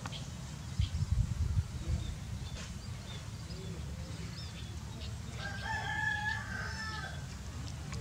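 A rooster crows once, a single drawn-out call about five seconds in. A steady low rumble runs underneath and swells briefly about a second in, with a few faint high chirps.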